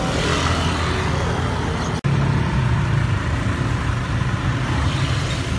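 Street traffic: a steady low hum of vehicle engines running nearby. It drops out for an instant about two seconds in.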